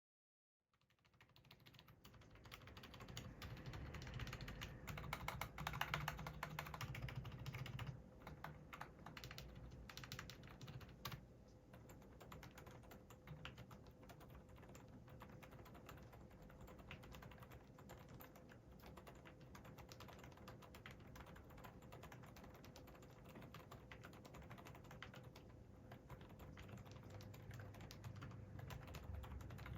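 Fast, continuous typing on a Hansung GK787SE OfficeMaster mechanical keyboard with Hawk 40g low-noise tactile switches, factory pre-lubricated: soft, quiet key presses. The typing is louder for the first several seconds, then goes on steadily and more quietly.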